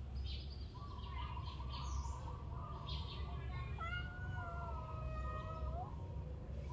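Kittens meowing, with a long drawn-out meow a little past the middle, over a steady low rumble.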